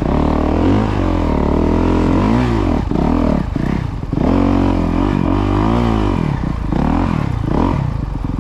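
Dirt bike engine revving up and dropping back again and again, about once a second, as the throttle is worked on and off while riding.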